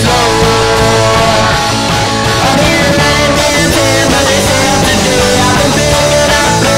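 Punk rock band playing: electric guitar, bass and drums, loud and steady.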